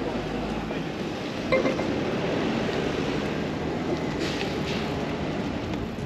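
Steady outdoor background noise with a single short clink about a second and a half in.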